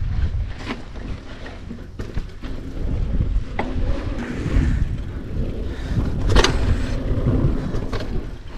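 Mountain bike ridden fast over sandy dirt jumps: wind buffeting the microphone with a low rumble, tyres rolling on loose dirt, and the bike rattling, with several sharp knocks, the loudest about six and a half seconds in.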